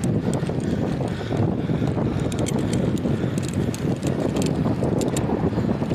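Wind buffeting the microphone on a moving road bicycle, a steady rumble, with scattered runs of quick ticking from the bike's freewheel from about two seconds in.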